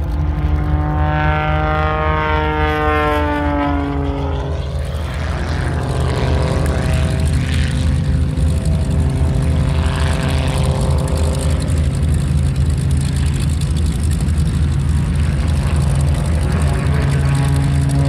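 Aerobatic biplane's piston engine and propeller running in flight overhead. The engine note falls in pitch over the first four seconds and then settles into a steady drone over a constant low rumble.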